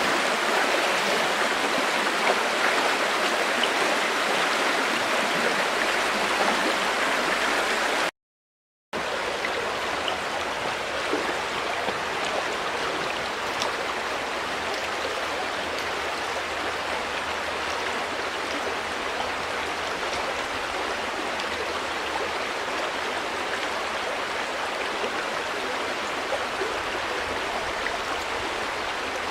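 River water flowing steadily. It cuts out completely for under a second about eight seconds in, then resumes slightly softer.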